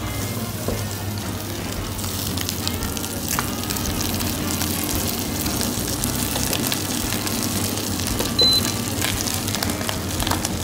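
A block of pressed pulled beef searing in hot fat in a frying pan: a steady sizzle with fine crackling.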